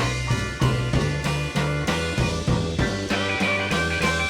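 Live electric blues band playing a slow blues instrumental passage between sung lines, with a steady beat under the bass and guitar.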